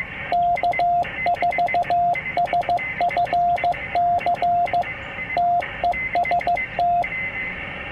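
Morse code sidetone from an Icom IC-703 transceiver: a single steady beep keyed in dots and dashes as the radio's memory keyer sends a CW beacon test message with the callsign, 'K4SFC TEST'. It stops about seven seconds in.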